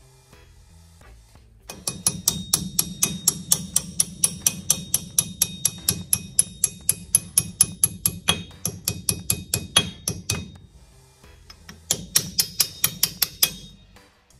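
Small hammer tapping a steel hub key into the keyway of a Dana 44 rear axle shaft: quick light metallic taps, about five a second for eight seconds, then a short pause and another brief run of taps.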